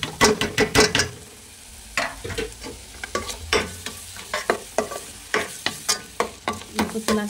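A perforated steel ladle scrapes and clinks against a steel pot in quick, irregular strokes, stirring tomato paste and spices frying in hot oil. The masala sizzles steadily underneath.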